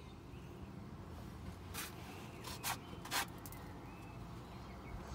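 Faint steady low background rumble, with three short rustling noises a little under two seconds in and around the three-second mark.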